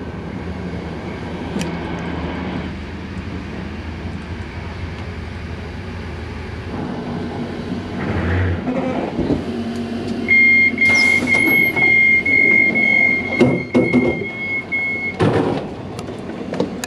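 Passenger train's low rumble as it comes to a stop, dying away about halfway through. Then a steady high electronic tone sounds for about five seconds while the carriage's sliding door opens, with a few clunks from the door.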